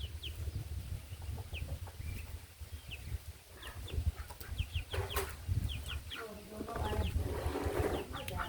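Chicks peeping: many short, high, falling peeps repeated throughout, with a hen's lower clucking joining in over the second half, over a steady low rumble.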